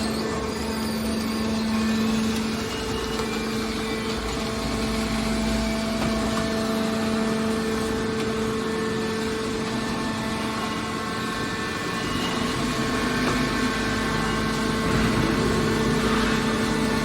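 Scrap metal baler's hydraulic power unit running steadily, a constant mechanical hum with no impacts or changes.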